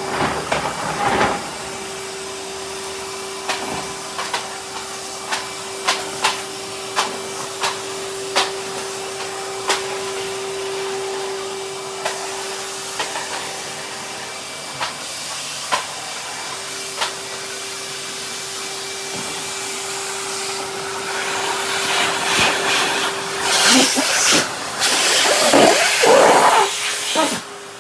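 Henry cylinder vacuum cleaner running with a steady hum and hiss, with frequent short clicks as bits of debris are sucked up. The suction gets louder and rougher in the last few seconds.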